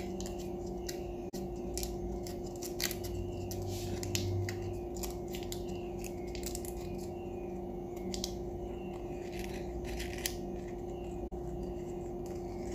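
A freshly baked muffin being pulled open by hand: a string of small, irregular crackles and rustles as the crunchy top breaks, over a steady low hum.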